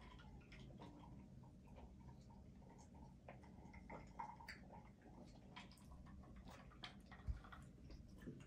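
Near silence with faint, scattered small clicks and mouth noises of people eating a chicken boil at the table, and one soft low thump about seven seconds in.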